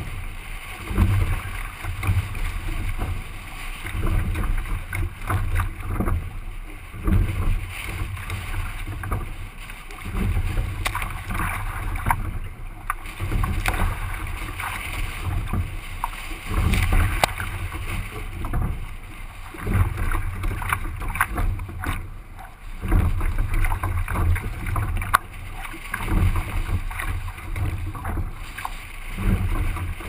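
Wind buffeting a microphone on the bow of a rowing shell, a rumble that swells and fades every few seconds, with choppy water splashing and hissing against the hull and scattered sharp clicks and slaps.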